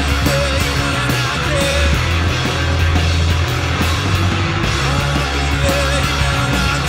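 Disco-punk band playing live: a driving electric bass line over a steady drum beat, with electric guitar.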